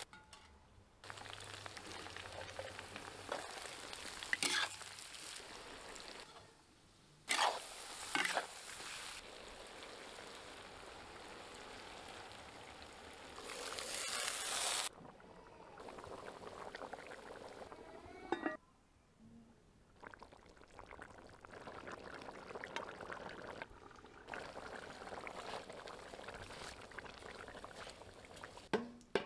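Meat and vegetables sizzling in hot oil in a cast-iron kazan, heard in several short cuts, with a few sharp knocks. About halfway, water is poured from a metal bowl into the hot oil: a loud hiss that builds and then cuts off suddenly.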